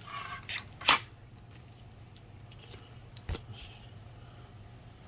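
Toy packaging being handled: a brief rustle of plastic and card, a sharp click just before one second in, and a second, lighter click a little after three seconds.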